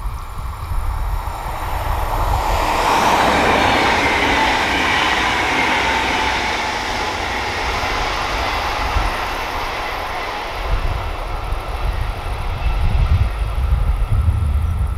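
Stadler KISS double-deck electric multiple unit passing and then running away along the line: rushing wheel and rail noise with a faint falling whine, building up quickly a couple of seconds in and fading out over several seconds.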